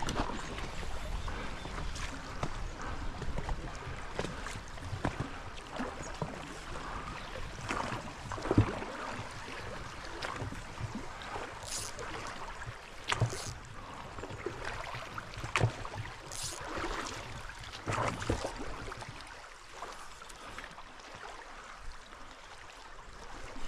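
A raft being rowed along a river: oars dipping and splashing, with irregular sharp knocks every second or two over the steady rush of moving water.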